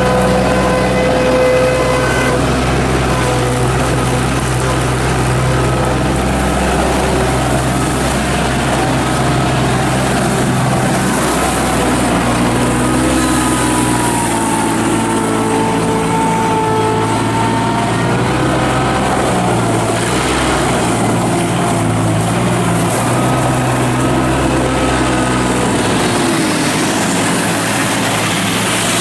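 Bobcat 643 skid steer loader's Kubota diesel engine running steadily, with a higher whine that shifts in pitch now and then as the machine is worked.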